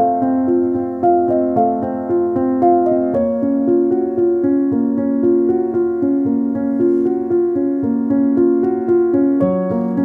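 Background keyboard music with a steady, even flow of notes; the chords shift about three seconds in and again near the end.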